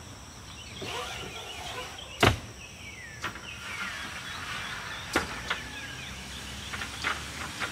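RV roll-out awning's metal support arms being slid down. A sharp metal clack about two seconds in is the loudest sound, followed by scraping and a few lighter clicks as the arm lowers.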